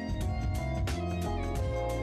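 Instrumental background music with a beat.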